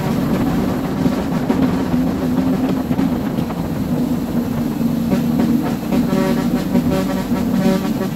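A heavy tanker truck driving along a road: steady engine and road rumble mixed with music playing.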